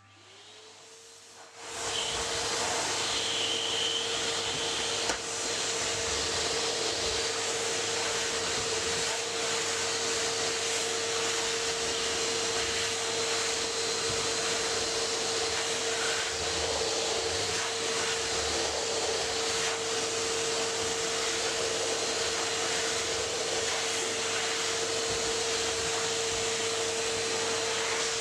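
Vacuum cleaner switched on: its motor whine rises in pitch for a second or so, then settles into a steady run with a loud even rush of air.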